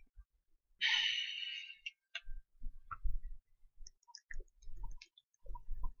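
A person lets out a long, breathy sigh about a second in, followed by scattered light clicks and soft low knocks.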